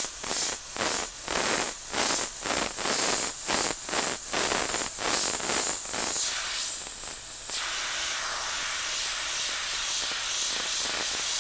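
Airbrush spraying thinned black paint: a hiss that swells and fades about two to three times a second for the first half as strokes are laid down, then runs steadily.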